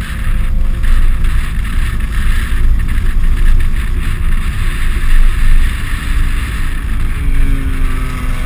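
Car driving at low speed, heard through an externally mounted camera: a loud, steady low rumble with wind noise on the microphone. Engine tones rise in pitch near the end as the car speeds up.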